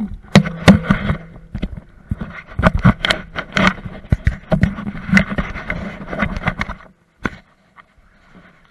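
Handling noise from an action camera being picked up and repositioned: a rapid jumble of knocks, bumps and scraping right against the microphone. It stops about seven seconds in with a single sharp click.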